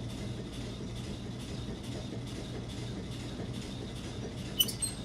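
Steady low mechanical hum of running machinery, with faint regular ticking and a couple of light clicks near the end.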